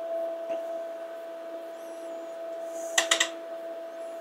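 HP 8902A measuring receiver's RF input attenuator clicking, a quick run of three clicks about three seconds in, over a steady hum. The attenuator keeps cycling instead of settling, a fault the owner puts down to failed attenuator O-rings.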